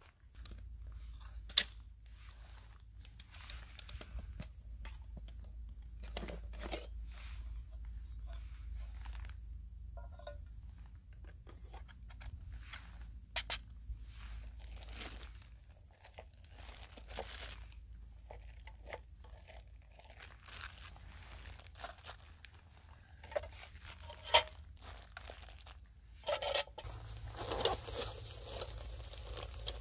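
Camping gear being handled: aluminium mess tins and other cookware clink and knock as they are set down on rock, with two sharp metal clinks standing out. Bags and packaging rustle between them, and a denser crinkling of a packet starts near the end.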